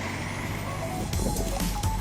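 A heavy truck's engine running steadily under a rising high sweep, then electronic dance music with a steady beat comes in about a second in.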